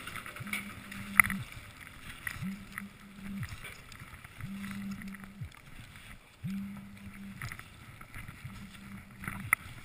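Skis sliding through deep fresh powder snow, with a sharp click about a second in and another near the end. Under it a low hum comes and goes about every two seconds.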